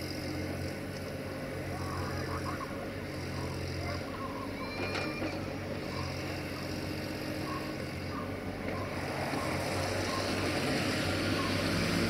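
Caterpillar 302.5C mini excavator's diesel engine running while it digs, its note shifting step by step with the hydraulic load, with faint clicks and knocks from the digging gear. A broad hiss builds in the last few seconds.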